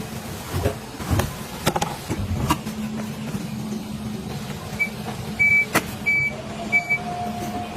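A small electric motor hums steadily amid scattered clicks and knocks, and four short high electronic beeps sound near the end.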